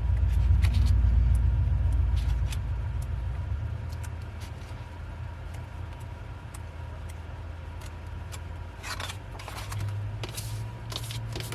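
Pages of a photo book being flipped quickly, with faint paper ticks and a few brief rustles near the end. Under them a low rumble, loudest in the first few seconds, fades to a quieter steady hum.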